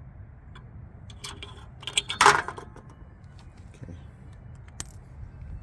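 Light metallic clinks and rattles of hand-handled metal parts and tools while a car horn is unbolted, with one louder clank about two seconds in.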